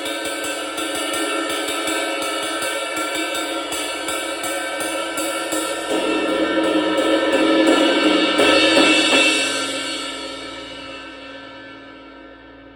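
Zildjian A Avedis Reissue 20-inch cymbal played with rapid repeated strokes that keep it washing, then building to a louder swell about six seconds in that peaks near nine seconds and rings out in a long fading decay.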